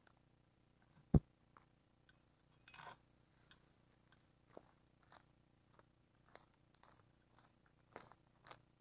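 Faint scattered clicks and rustles from walking through tall weeds while holding the camera, with one sharp knock about a second in and a short rustle a couple of seconds later.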